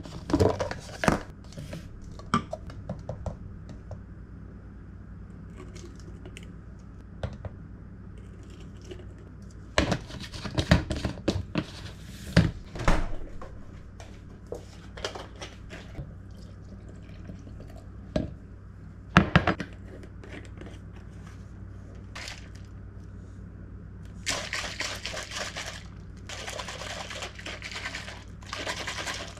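Kitchen handling sounds of making a protein shake: clicks and knocks of a canister lid and containers set on the counter, and a packet torn and crinkled. Near the end comes a longer stretch of liquid pouring.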